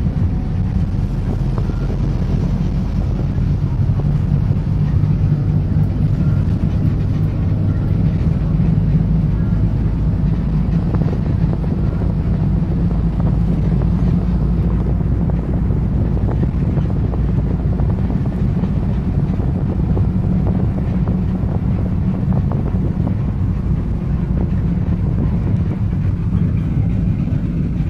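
A city bus's engine and road noise heard from inside the cabin while the bus drives: a steady low drone.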